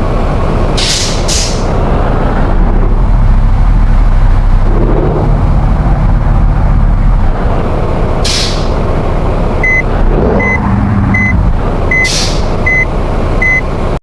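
A bus's engine running close by, with short bursts of compressed-air hiss about a second in, at about eight seconds and again near the end. From nearly ten seconds in, a high beep repeats about every three-quarters of a second.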